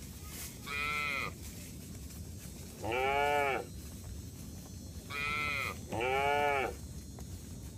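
Young cattle calling from the passing herd: four high-pitched, bleat-like calls, each rising and then falling in pitch. One comes about a second in, one at about three seconds, and two come close together in the second half.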